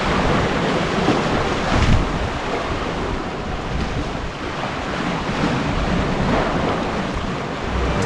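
Strong wind buffeting the microphone over waves washing against shore rocks, a steady rushing noise with a louder surge about two seconds in.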